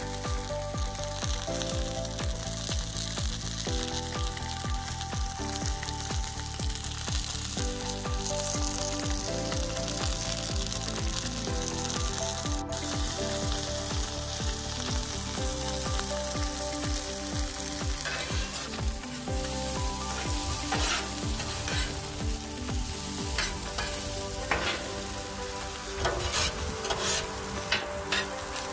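Salmon frying on a Blackstone flat-top griddle: a steady sizzling hiss, with a scattering of short sharp clicks in the last third.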